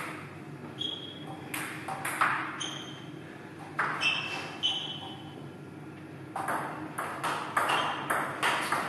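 Table tennis ball clicking off the table and the players' bats: sharp, ringing clicks in uneven groups at first, then a rally of evenly spaced hits, about two and a half a second, from about six and a half seconds in.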